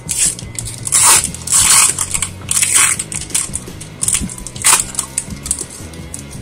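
Foil wrapper of a Pokémon booster pack crinkling and tearing as it is ripped open by hand, in a run of loud crackling bursts through the first five seconds, with quiet background music underneath.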